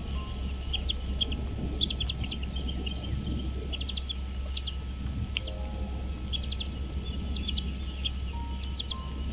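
Birds chirping: short, high calls in quick clusters of two to four, repeated throughout, over a steady low background rumble.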